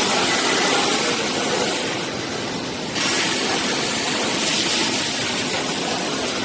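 Steady hiss and rumble of a robotic welding cell for car parts. The high hiss eases about two seconds in and comes back sharply at three seconds.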